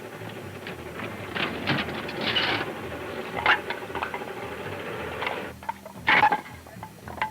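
Steady mechanical running overlaid with irregular metallic clicks and knocks. The steady sound stops about five and a half seconds in, leaving a few louder knocks.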